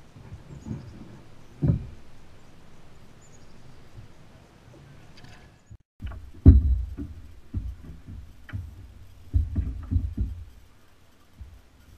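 Irregular low knocks and thumps on a plastic fishing kayak's hull as the angler moves about in it: one thump a couple of seconds in, then a run of knocks and bumps from about halfway through, fading out near the end.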